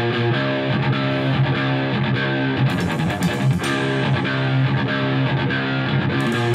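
Live rock band playing an instrumental passage: an electric guitar riff repeating over bass and drums, with a run of cymbal hits about halfway through and another near the end.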